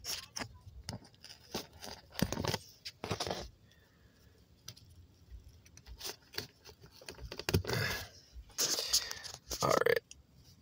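Handling of a paper scratch-off lottery ticket: a few short rustles and scrapes as the ticket is moved about and laid flat.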